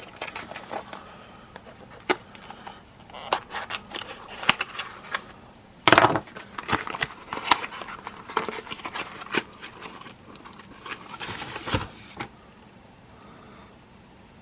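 A cardboard box of .357 Magnum cartridges being opened and the loose rounds handled: a run of clicks, rattles and metallic clinks, loudest about six seconds in, stopping about two seconds before the end.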